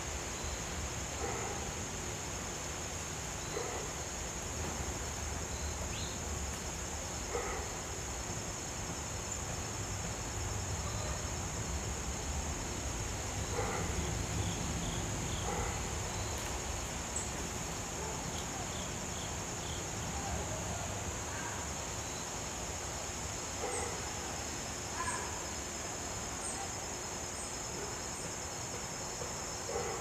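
Steady high-pitched drone of insects singing, with scattered faint short chirps and a low background rumble.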